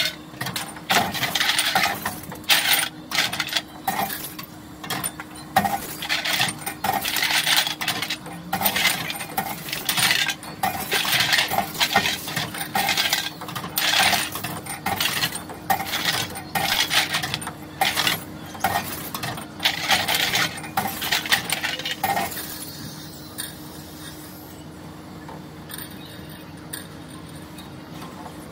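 Glass bottles clinking and clattering as they are handled from a shopping cart and pushed one by one into the glass slot of an Envipco reverse vending machine, over the machine's steady low hum. The clinking stops about six seconds before the end, leaving only the hum.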